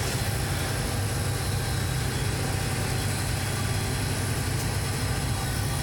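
Large air-conditioning outdoor unit running: a steady low hum under an even rush of air from its fan.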